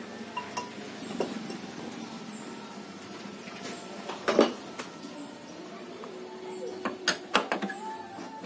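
Metal clinks and knocks from hands and tools on the blade and arbor of a homemade table saw, some ringing briefly; the loudest knock comes about halfway through and a quick cluster follows near the end. The saw is not running.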